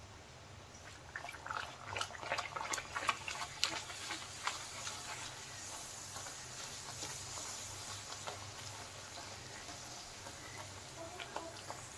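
A wheat-flour puri deep-frying in very hot oil in a wok. It sizzles, with dense crackling about a second in that thins out after a few seconds into a steadier hiss.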